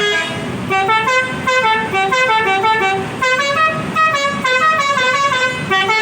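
Bus telolet horn, a multi-tone musical air horn, playing a quick stepped melody of short notes. It plays in phrases, with brief breaks about a second in and about three seconds in.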